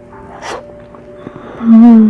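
A man hums a loud, drawn-out "mmm" with his mouth full while tasting hot roasted potato. Faint background music plays steadily, and a brief breathy puff comes about half a second in.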